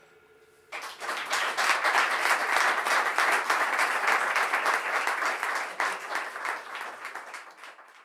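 The last notes of a jazz quartet die away faintly, then an audience breaks into applause a little under a second in, clapping steadily and thinning out near the end.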